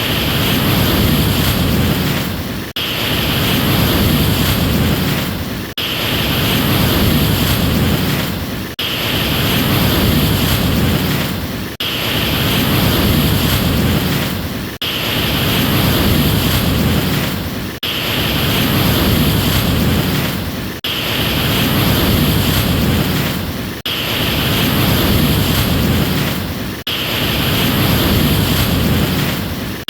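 Ocean surf: a steady rushing wash of waves that swells and eases in an even cycle about every three seconds, each cycle broken by a sudden brief drop before the next.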